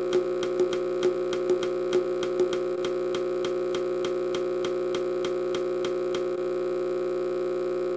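Synthesized polyrhythm track: a steady held drone with short tick-like notes in an interlocking rhythm. The ticks thin out and fade about two and a half seconds in, leaving the drone alone.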